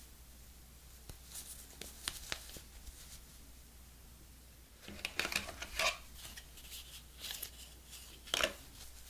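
Unboxing handling sounds: light clicks and rustles as a coiled USB-C to Lightning cable is turned over in gloved hands, with louder bursts of rustling about halfway through, and the loudest short rustle near the end as paper inserts are lifted from the box.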